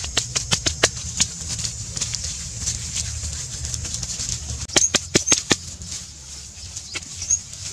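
Hands slapping and packing wet mud: quick clusters of sharp slaps and pats, one over the first second and another about five seconds in.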